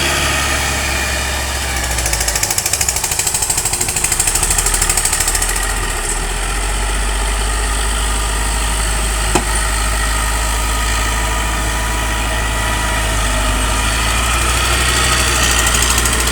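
Truck engine idling steadily, with a stretch of fast rhythmic pulsing about two to six seconds in and a single sharp knock about halfway through.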